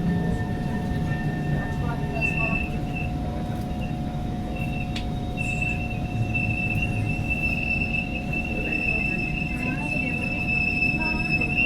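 Kawasaki Heavy Industries C151 metro train braking with a high-pitched screech over its running rumble. The screech comes in short bursts at first and then holds continuously; it is a squeal this particular set is known for when braking.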